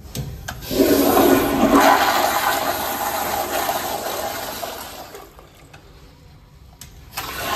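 American Standard Afwall toilet flushed by its exposed chrome flushometer valve: a rush of water starts about a second in and fades over about four seconds. A second flush starts near the end.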